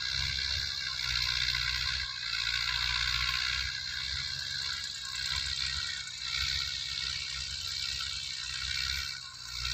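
Massey Ferguson 185 tractor's diesel engine running under load while it drives a rotary tiller, heard as a steady mechanical rattle, with gusts of wind buffeting the microphone in an uneven low rumble.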